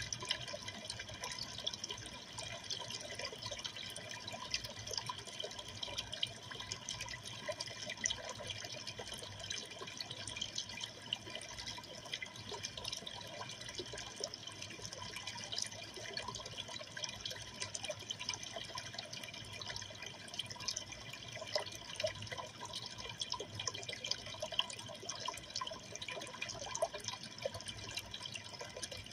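Steady trickle and splash of water circulating in a freshwater aquarium, with a constant patter of small drips.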